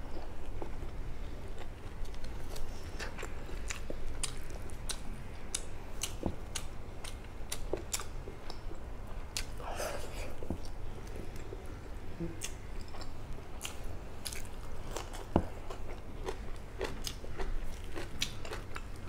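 Close-up chewing and biting of fried food (chicken sausage and crispy fried fish) eaten by hand, with irregular crunches and wet mouth clicks, several a second.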